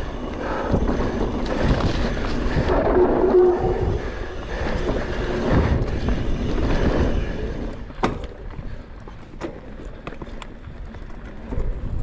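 Mountain bike rolling fast down a dirt trail: wind buffets the camera microphone over the tyres running on dirt and the bike's rattle. It quietens about two thirds of the way through, where a few sharp clacks stand out.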